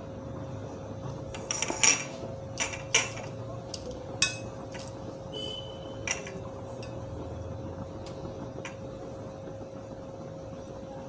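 Metal spoon clinking against a glass bowl and a non-stick pan as bay leaves and cinnamon are dropped into hot oil: a quick run of sharp clinks about two to three seconds in, then a few single ones spaced out, over a steady faint hum.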